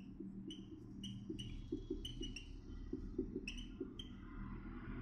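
Whiteboard marker squeaking against the board while words are written, a string of short, high squeaks one after another. A low steady hum runs underneath.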